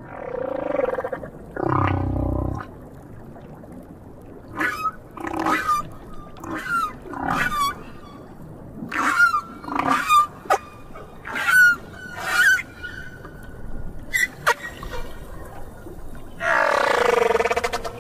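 Song of South Pacific humpback whales. Two low moans come first, then a run of about ten short, higher cries that rise and fall in pitch. A long moan closes it near the end.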